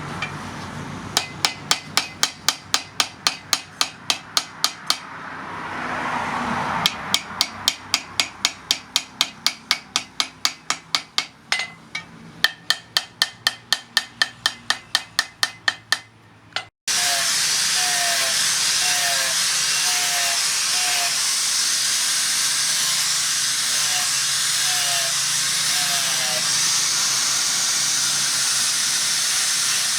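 Hand hammer forging hot spring steel on an anvil: rapid, evenly spaced ringing blows, about three to four a second, in two long runs. About seventeen seconds in it cuts off abruptly and a steady, loud hiss takes over.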